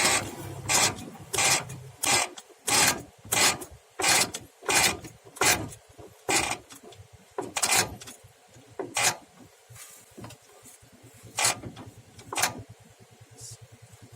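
Rhythmic scraping strokes of a hand tool worked on a part, about one and a half strokes a second, then slowing to a few scattered strokes after about six seconds.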